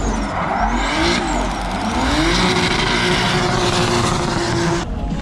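A drift car's engine revving hard through a slide, with a broad hiss of spinning, sliding tyres. The engine note dips and climbs, then holds high and steady, and cuts off suddenly near the end.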